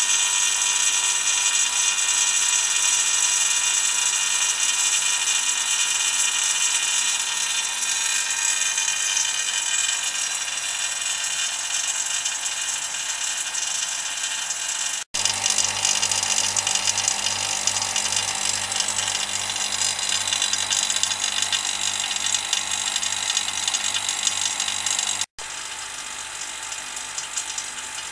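Electric vacuum pump running steadily, a constant motor whine with hiss, pulling a hard vacuum of about −1 bar on a resin-infusion bag. The sound cuts out abruptly twice, picking up a low, even pulsing after the first break and running quieter after the second.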